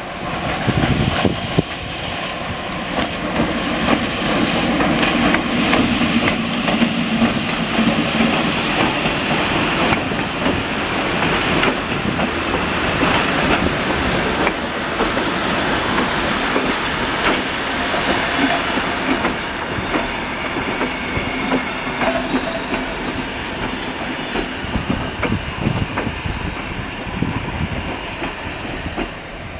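A diesel locomotive hauling a string of heritage passenger carriages passes by. The engine's steady tone is heard over the first several seconds, then the noise of the carriage wheels running on the rails takes over, with a few brief high wheel squeals near the middle.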